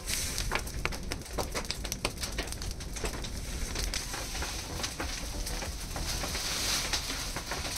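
Wood and leaf fire crackling in a brick kiln's firing opening, a continuous run of small sharp snaps and pops. From about five seconds in, a louder hissing rustle joins it, as of bundled dry leafy branches being dragged or carried.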